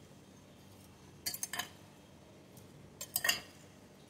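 Metal spoon mixing chopped raw mango pieces coated in spices in a glass bowl, clinking against the bowl in two short runs of clicks, about a second in and again near the end.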